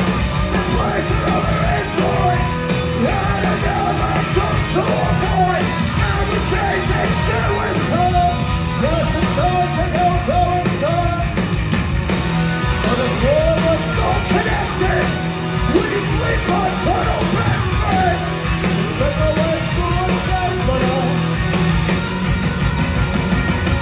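Punk rock band playing loud and live, with distorted guitars, bass and drums and a shouted lead vocal, heard as a crowd recording from the audience.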